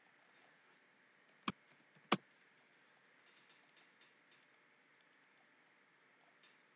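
Two sharp clicks about two-thirds of a second apart, then a run of faint light clicks, from a computer mouse and keyboard being worked.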